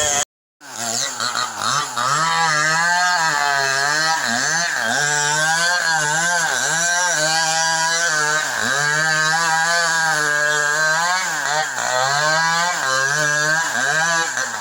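Two-stroke chainsaw running at high speed, its pitch dipping and recovering again and again as it bogs under load while cutting the duyo tree's wood. The sound breaks off for a moment just after the start, and the engine begins to wind down right at the end.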